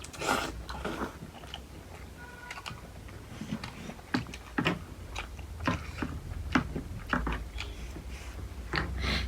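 Close-miked chewing of momo dumplings and noodles, with irregular wet mouth smacks and clicks over a low steady hum.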